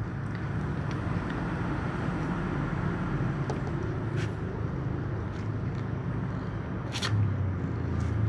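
A hungry kitten growling low and continuously while it eats beside another cat, food-guarding noise, over close-up chewing with a few sharp clicks. The growl gets louder near the end.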